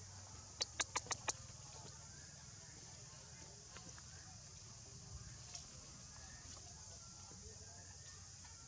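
A quick run of five sharp clicks about half a second in, over a steady high hiss and a low hum, with a few faint ticks later.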